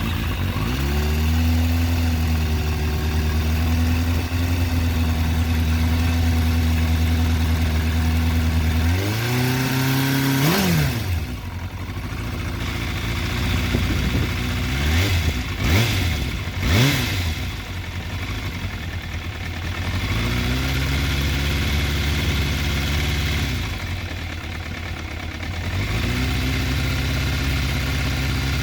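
Kawasaki ZRX motorcycle's inline-four engine running steadily just after starting. It is revved once at about nine seconds and blipped three times quickly around fifteen to seventeen seconds, then settles back to a steady idle.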